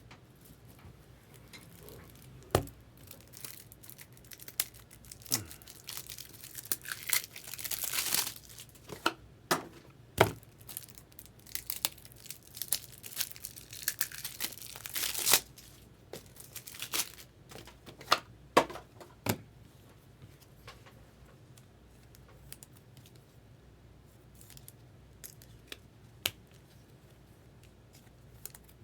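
Trading card packaging being torn open and crinkled, in two longer stretches, among scattered sharp clicks and taps of cards and plastic being handled.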